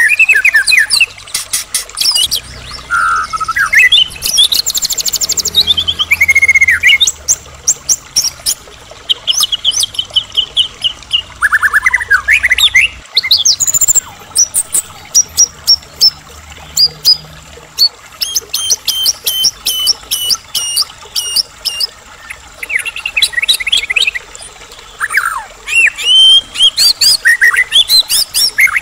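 White-rumped shama (murai batu) singing a loud, varied song: whistled phrases that slide up and down, fast trills and rapid runs of repeated notes, with short pauses between phrases.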